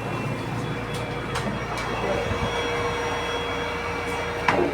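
Cough assist machine's blower running with a steady rush of air. A steady tone holds from about halfway through, and a sharp click comes near the end.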